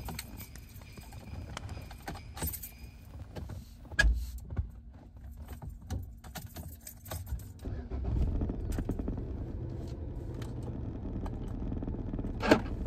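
Car keys jangling and clicking at the ignition, with a thump about four seconds in. About eight seconds in the car's engine starts and settles into a steady low idle, and a sharp click comes near the end.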